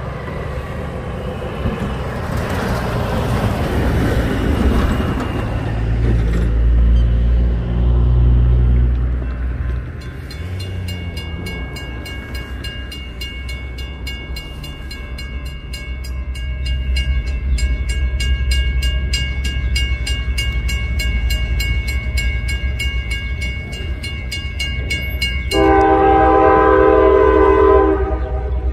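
Diesel locomotives rumbling past, then a warning bell ringing rapidly for about fifteen seconds. Near the end a locomotive air horn sounds one chord for about two seconds.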